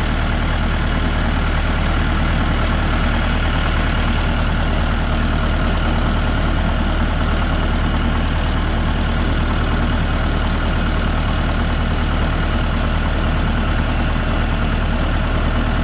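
Tractor engine running steadily at an even speed, heard close up from on board the tractor as it drives along.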